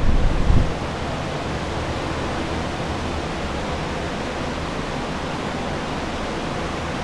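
Several restoration air movers (drying fans) running, a steady even rush of fan noise. There is a brief low rumble near the start, like wind or handling on the microphone.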